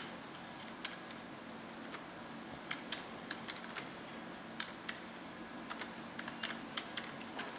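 Light, sharp clicks and taps at an irregular pace, about fifteen of them and bunched more densely in the second half, over a faint steady hum.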